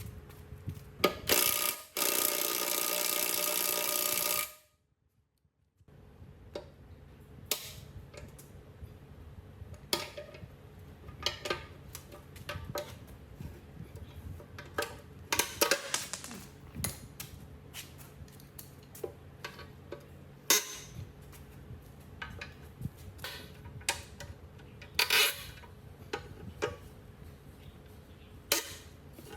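Workshop handling of metal parts and tools: scattered sharp clicks, taps and knocks. A loud, steady hissing noise runs for about two and a half seconds near the start and stops abruptly.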